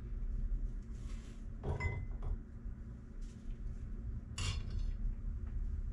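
Clinks and knocks of a tea-light wax warmer, a white ceramic bowl and its black metal stand, being handled and set down. There is a short clink with a brief ring about two seconds in and a sharper clack about four and a half seconds in.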